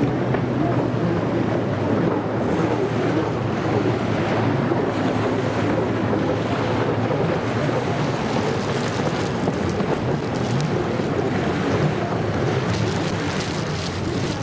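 Wind buffeting the microphone over the steady drone of racing jet ski engines out on the water, with surf washing in.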